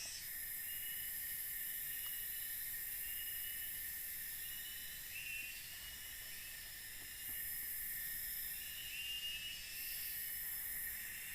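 Forest insects buzzing in a steady high-pitched drone that swells and fades every few seconds, with a short rising call repeating about every three to four seconds.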